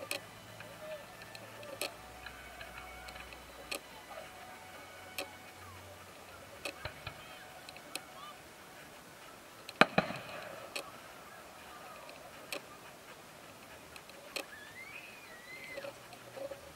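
Fireworks going off: scattered sharp pops and cracks every second or two, with one much louder bang about ten seconds in.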